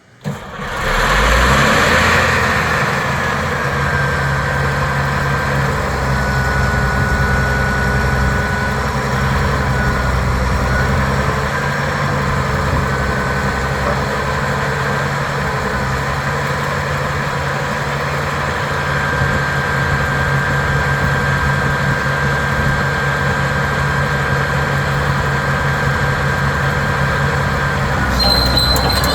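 Caterpillar D6R bulldozer's diesel engine running steadily, with a thin high whine over the engine note.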